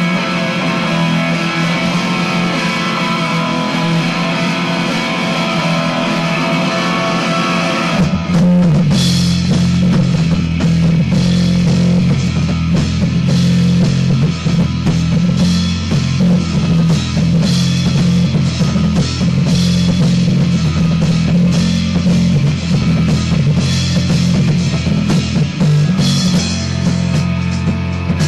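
Rock band recording, made on a Lloyd's V327: guitar plays alone for about the first eight seconds, then drums and bass guitar come in and the full band plays on.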